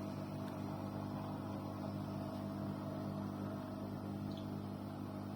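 Arçelik 6343 dishwasher giving off a steady low hum, a 'vuuuvvvv', while switched off with its door closed and nothing running: a fault the owner cannot yet explain.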